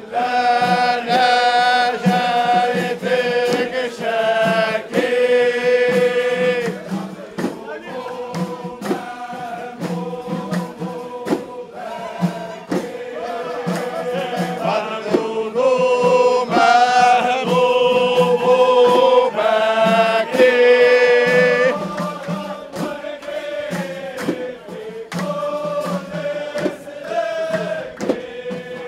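A crowd of men chanting a Sufi devotional chant in unison, with long held notes that rise and fall in phrases, over sharp percussion strikes that keep the beat.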